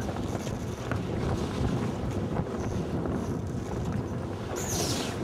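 Wind buffeting the microphone: a steady low rumble with a few faint ticks. Near the end there is a short hiss with a falling whistle-like tone.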